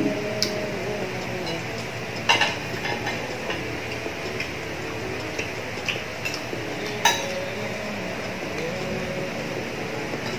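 Chopsticks and a spoon clinking against a glass bowl and plate while eating: a few sharp clinks, the loudest about two seconds in and again about seven seconds in, with lighter taps between.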